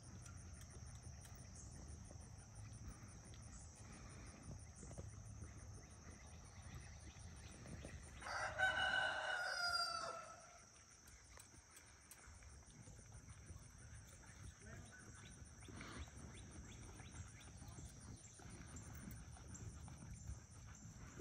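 A rooster crows once, about eight seconds in, a single crow of about two seconds that drops in pitch at the end. Under it runs a faint steady high drone of insects.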